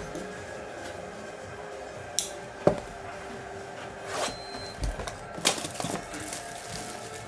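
Faint background music with scattered clicks, knocks and rustles from handling, a handful of short sharp sounds spread over the few seconds.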